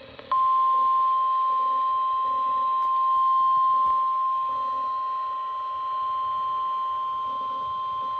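NOAA Weather Radio 1050 Hz warning alarm tone: one steady, unbroken high tone that starts about a third of a second in, over faint background hiss.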